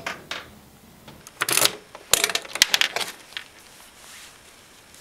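Keys jingling and clicking in the ignition lock of a 49.5cc scooter as the key is turned to release the underseat latch: a short rattle about a second and a half in, then a quick run of sharp clicks and rattles as the seat latch lets go and the seat is lifted.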